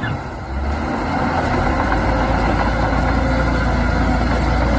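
A heavy engine running steadily with a low rumble, swelling a little in the first second and then holding even.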